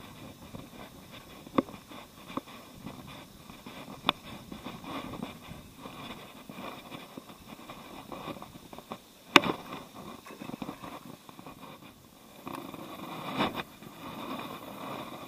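Footsteps and rustling while walking along a path and into tall grass at the water's edge, with handling noise rubbing on the microphone and a single sharp click about nine seconds in.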